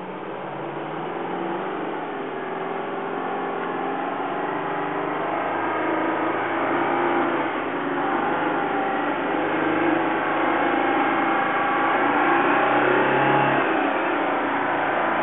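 1981 International Harvester Paystar water truck's diesel engine running under load as the truck approaches, growing steadily louder until it comes alongside near the end.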